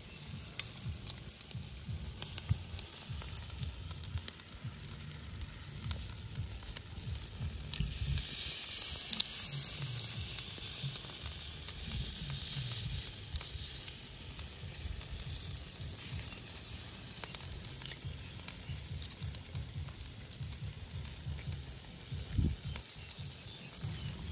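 Snails sizzling in their shells on a wire grill over charcoal, their juices and chili sauce hissing, with many small scattered pops and crackles. The hiss swells for a few seconds about a third of the way in.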